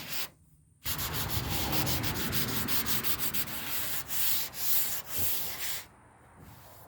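Sandpaper rubbed by hand over the painted steel body of a 1978 Ford pickup in quick back-and-forth strokes, cutting back the old paint. It starts about a second in and drops to a fainter rubbing near the end.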